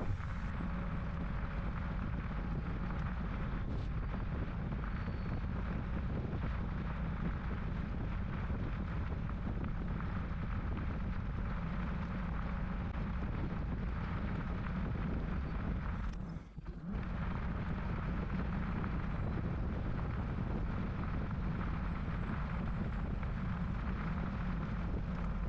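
Steady wind rumble on the microphone mixed with the tyre noise of a bicycle rolling along a wet gravel trail. The noise dips for a moment about two-thirds of the way through.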